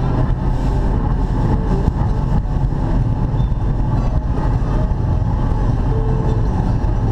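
Baja powerboat under way at a steady speed: its engine runs at an even low rumble under a constant rushing noise of wind and water.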